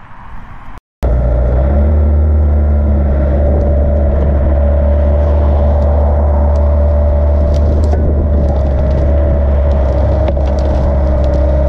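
A Yanmar B50 mini excavator's diesel engine runs steadily from about a second in, with a steady whine over it and scattered light ticks and scrapes as the bucket starts digging into the sod.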